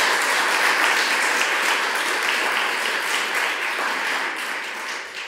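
Audience applauding: dense, steady clapping that begins to die away near the end.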